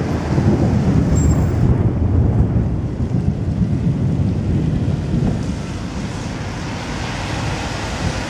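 Thunder rolling: a long, deep rumble, strongest in the first few seconds and slowly dying away.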